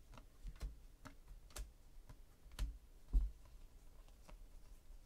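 Hands flipping through a stack of 2017 Panini Classics football trading cards, the cards giving irregular light clicks and ticks as they are slid past each other, with a louder soft thump about three seconds in.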